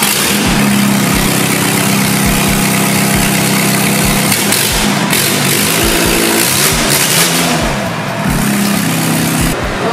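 Isuzu D-Max's tuned diesel engine revving with the bonnet open: held at high revs for about four seconds, then blipped up and down several times over a loud rushing hiss.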